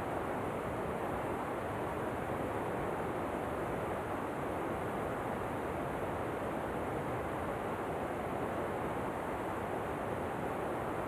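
Steady, unbroken rush of falling water, an even waterfall noise with no change in level.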